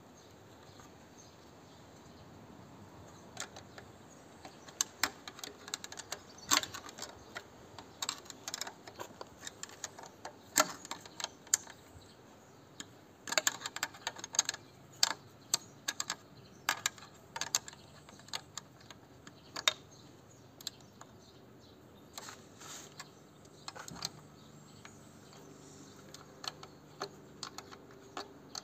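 Irregular sharp metallic clicks and taps of a spanner working the bolt on the air filter mounting bracket of a diesel tiller engine, in scattered clusters.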